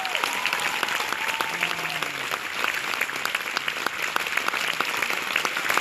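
Large concert audience applauding: a dense, steady clatter of many hands clapping.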